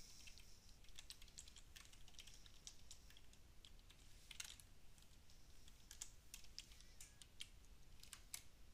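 Faint typing on a computer keyboard: irregular keystroke clicks.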